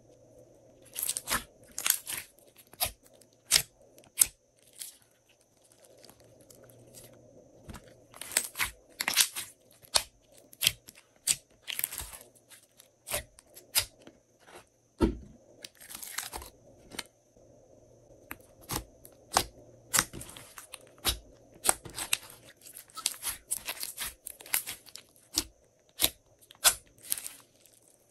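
Hands squeezing and stretching glossy slime: irregular sticky pops, clicks and crackles that come in clusters, with short pauses between them.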